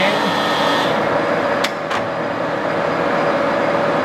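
TOS SN40C gap-bed lathe running steadily under power, its drive and gearbox giving a constant whine over a mechanical whir, with two sharp clicks close together a little over one and a half seconds in.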